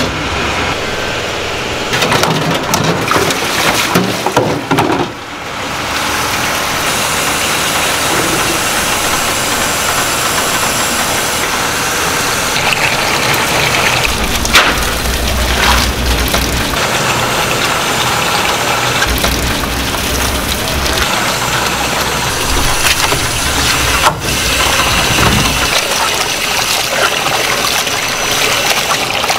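Water rushing and splashing as boiled thin wheat noodles are drained in a plastic colander and rinsed by hand in a basin of running water, with a steady rushing noise throughout.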